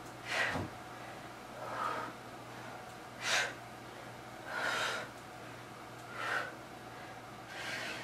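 A woman breathing hard and rhythmically while doing push-ups: six breaths, about one every one and a half seconds, short sharp puffs alternating with longer, softer ones.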